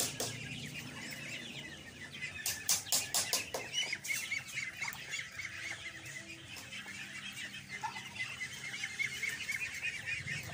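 A flock of ducklings peeping constantly in many overlapping short calls. A quick run of sharp clicks sounds about two and a half seconds in.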